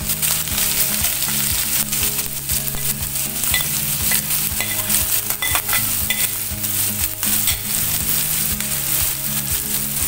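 Chopped onion and green chillies sizzling in hot oil in a non-stick frying pan as they start to sauté, a steady hiss full of small crackles and pops.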